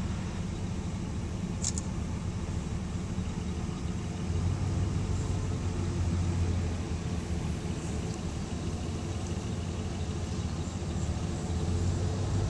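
Steady low hum of a car engine and road noise from a slowly moving car, swelling a little twice, with a faint click about two seconds in.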